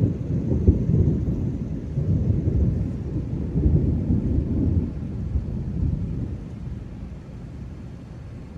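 Rolling thunder: a long, low rumble that swells and then dies away over the last few seconds.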